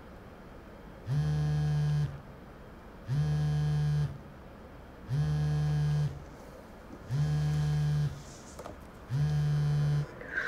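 Mobile phone vibrating against a hard surface, buzzing five times for about a second each, about two seconds apart: an incoming call.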